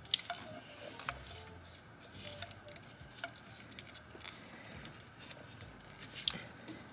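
Light handling noise as gloved hands work a rubber hose onto an oil catch can fitting: scattered small clicks and taps with rubbing, a sharper click right at the start.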